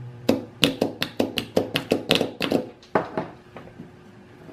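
Quick irregular run of about a dozen sharp metallic clicks as the alligator-clip jumper lead is worked on a lawn mower starter solenoid; the clicks stop about three seconds in.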